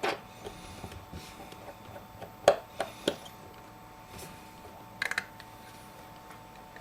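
Light clicks and taps of a small Phillips screwdriver and tiny screws as the connector cover screws of an iPhone 5 are taken out. There is a sharp tick about two and a half seconds in, two more just after, and a quick cluster of ticks around five seconds, over a faint steady hum.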